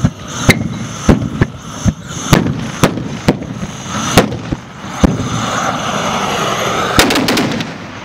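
A chain of carbide cannons (old gas cylinders charged with calcium carbide and water, footballs as stoppers) going off one after another as they are lit in turn: sharp, loud bangs about two a second, then a quick cluster of several bangs near the end.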